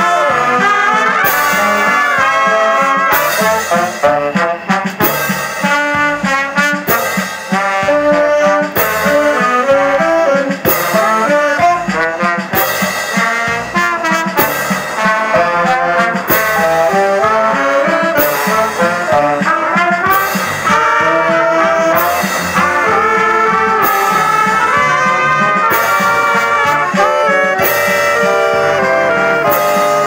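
Brass band of saxophones, trumpets and trombones playing a tune together live, over a steady beat.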